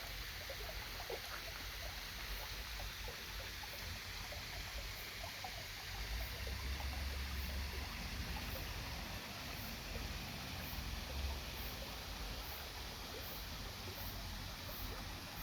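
Water of a small garden stream trickling and splashing steadily, with many small droplet-like plinks over a steady low rumble.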